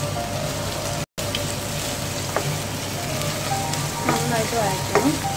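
Chopped onions sizzling steadily in hot oil in a nonstick wok, with a few sharp knocks of a wooden spatula against the pan. The sound drops out for an instant about a second in.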